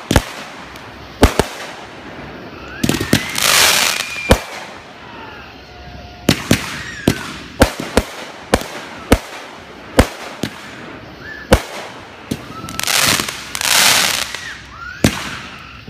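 Fireworks going off: a string of sharp bangs and cracks at irregular intervals. Twice, a few seconds in and again near the end, comes a longer rushing hiss with whistling glides.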